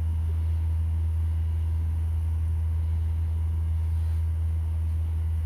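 A steady low hum with no change and no other sound.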